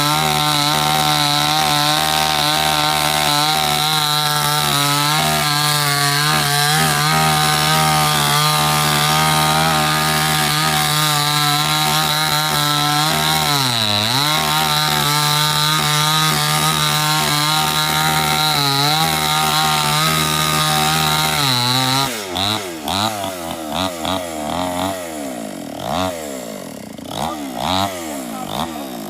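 Two-stroke chainsaw running at high revs while cutting wood, its pitch dipping briefly twice. About 22 seconds in it drops off full throttle and is then revved up and down in short blips.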